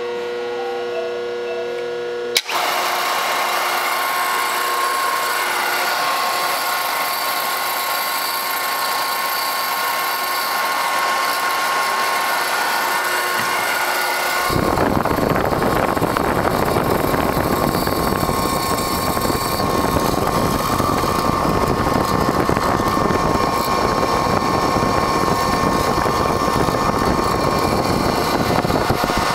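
Phase converter humming, then about two and a half seconds in a switch clicks and the Powermatic Model 10 hollow-chisel mortiser's motor starts and runs with a steady whine. About halfway through, the quarter-inch hollow chisel and bit start cutting mortises in wood, adding a loud rough noise over the motor.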